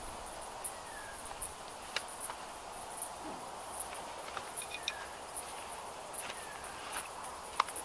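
Insects chirping in a steady high-pitched pulse, about twice a second. A few sharp clicks and knocks come from the tent straps and frame being handled, the loudest near the end.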